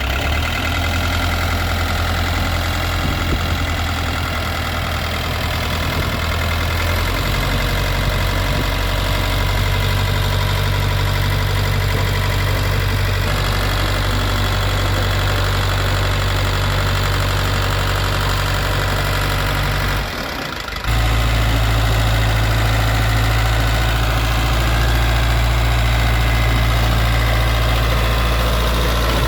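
Caterpillar 3204 four-cylinder diesel engine of a 1978 Caterpillar D3B bulldozer running steadily. Its note shifts a couple of times, and about two-thirds through it briefly drops away before coming back deeper.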